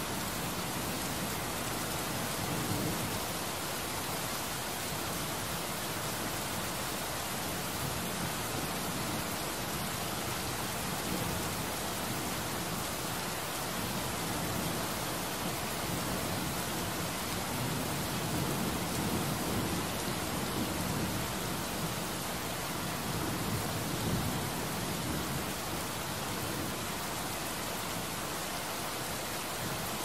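Heavy rain pouring steadily, a dense even hiss of drops on a hard surface.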